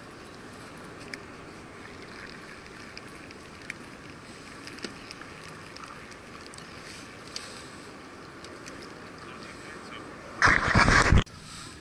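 Steady wind and lapping water with a few faint ticks, then about ten seconds in a loud burst of noise lasting under a second.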